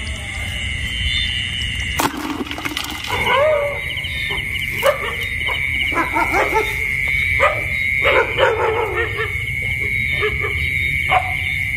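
Night-time paddy-field chorus: a steady, high trilling from calling frogs or insects, with short animal calls every second or so starting about two seconds in.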